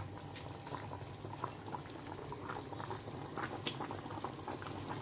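Chicken stew in coconut milk boiling in an open pan: a steady bubbling, with many small bubbles popping at irregular moments.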